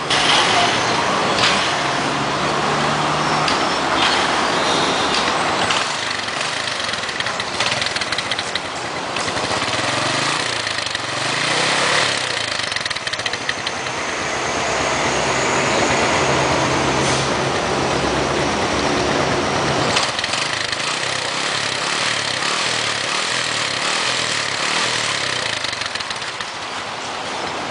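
KYMCO underbone motorbike engine starting and then running, heard close at the exhaust muffler, its speed rising and falling.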